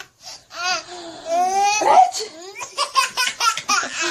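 A little boy laughing hard in quick repeated bursts of giggles, with a high rising squeal of laughter about halfway through.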